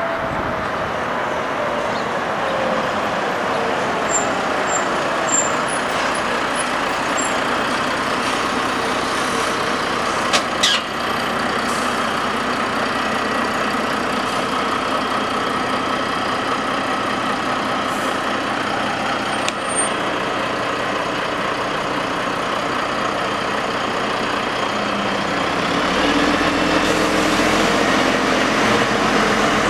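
Volvo FH truck's straight-six diesel running as the truck rolls slowly past, with a short sharp hiss of air brakes about ten seconds in. The engine grows louder near the end as the truck pulls away.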